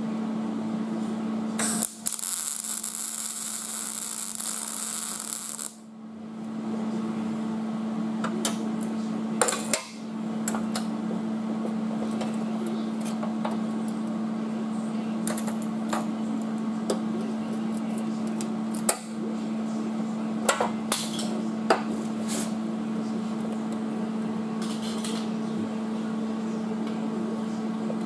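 Welding arc crackling and hissing for about four seconds as a plug weld is laid through a drilled hole in a new sheet-metal inner rocker, then a series of sharp metal clinks from hand tools and locking pliers being handled, and a brief second burst of welding near the end. A steady hum runs underneath.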